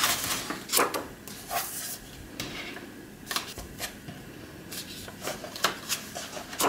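Pages of a paperback colouring book being turned by hand: a series of short papery rustles and flicks, the sharpest near the start and about a second in.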